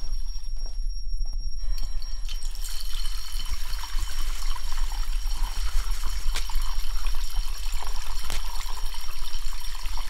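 A steady low drone runs throughout under a thin, high, steady whine. From about two seconds in, a hissing rush of running water comes in, with a few crackles, and it stops just before the end.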